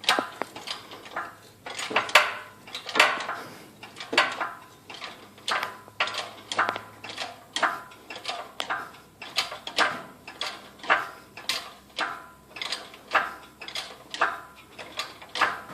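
Engine hoist being pumped to lift an engine and its subframe cradle: its lift chain and steel parts clank and clink about twice a second, with a short metallic ring after many of the clanks.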